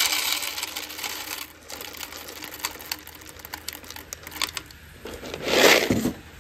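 Dry shelled corn kernels pouring from a plastic jar and rattling into the metal cup of a grain moisture tester. The pouring thins to a few scattered clicks, then a louder clatter of kernels comes about five seconds in.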